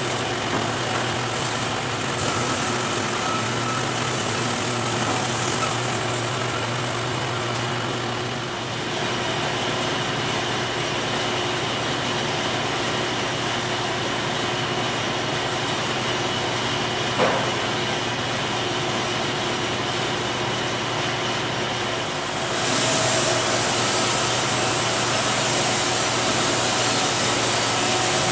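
Wood-Mizer LT50 portable band sawmill running with a steady hum. About a third of the way in the high hiss drops away. There is a single sharp click midway, and about three-quarters of the way in the sound grows louder with a stronger hiss.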